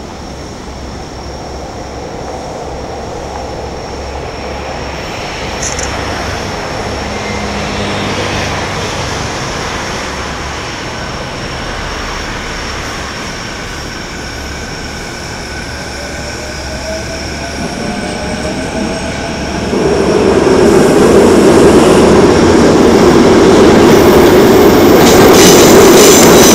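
Electric passenger train approaching and passing close by: a rumble that builds steadily, a rising whine, then loud running noise of wheels on rails from about 20 seconds in, with clicks from the rail joints near the end.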